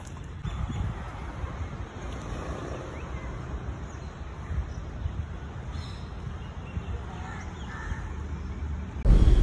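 Outdoor ambience: a low rumble of wind and phone handling with a few faint bird calls. Music cuts in suddenly and loudly right at the end.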